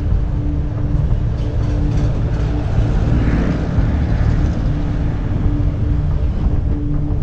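Wind rushing on the microphone of a camera on a moving bicycle, with road traffic passing. A vehicle goes by about three seconds in.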